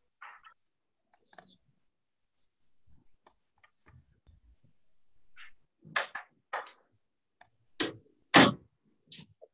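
Scattered short clicks and thumps, sparse at first and coming more often in the second half, with the loudest thump about eight and a half seconds in.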